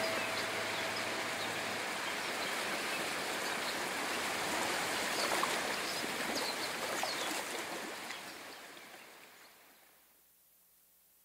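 Steady rushing of running water, fading out over the last few seconds to near silence.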